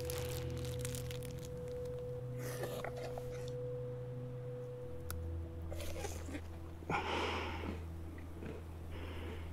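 Low, steady drone of a film score, several held tones at once, one higher tone dropping out about halfway. Over it, a clear plastic bag crinkles and rustles in short bursts as it is handled, the sharpest crinkle about seven seconds in.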